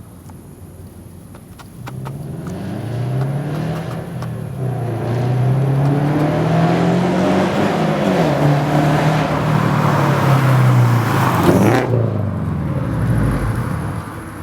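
Toyota GT86/Subaru BRZ/Scion FR-S 2.0-litre flat-four through a catless exhaust (Borla headers, Invidia N1 cat-back) accelerating hard. The engine note climbs and dips several times as the revs rise and fall. It is loudest in the middle and drops away sharply near the end.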